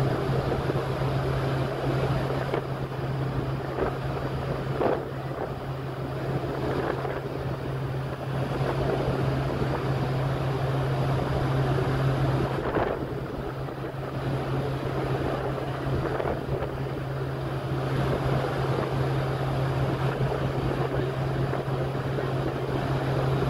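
The Carnival Valor's wake rushing and churning behind the stern, over a steady low hum from the ship, with wind buffeting the microphone.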